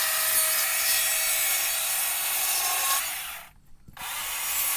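Battery-powered Stihl chainsaw cutting into a log, scoring a line an inch and a half to two inches deep around it, with a steady motor whine under the noise of the cut. About three and a half seconds in, the saw stops for a moment, then winds back up and cuts again.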